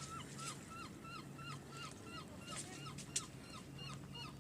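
A gull calling in a rapid series of short, evenly spaced calls, about four a second, each note rising then dropping in pitch. A sharp click about three seconds in.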